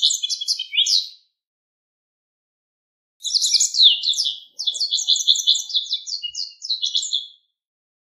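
Japanese wagtail singing. A short phrase of rapid, varied chirping notes stops about a second in; after a pause, a longer phrase of quick notes runs from about three seconds in until near the end.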